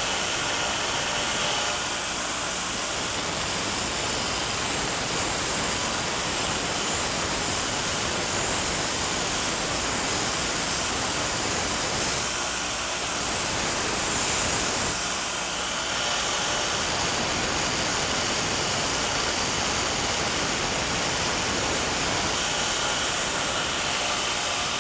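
Power grinder grinding the striking surface of a hardened steel farrier's tool (a punch or fuller), a steady hiss of steel on the abrasive. It rounds the face into a dome side to side so that no sharp edge is left to chip off. The sound eases briefly twice around the middle, as the work is shifted.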